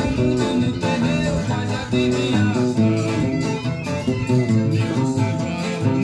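A 1993 Souto nylon-string classical guitar with an imbuia body, played solo and fingerpicked: a melody of plucked notes over low bass notes.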